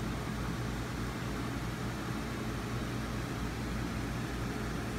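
Steady low hum and hiss of a fan running, unchanging throughout.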